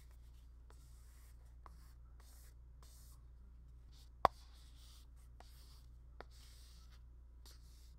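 Folded paper card swept across a matte paper-feel screen protector on an iPad to smooth out air bubbles: a series of faint, short scraping strokes. One sharp click a little after four seconds.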